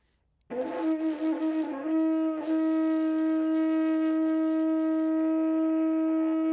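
Kudu horn played by buzzing the lips into it from the corner of the mouth. About half a second in, a wavering note starts, then settles into one long steady held note with a breathy hiss of air.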